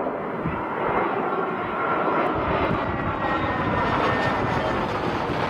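Jet airliner engines on landing approach, a steady rushing noise with a faint high whine, with gusts of strong wind buffeting the microphone.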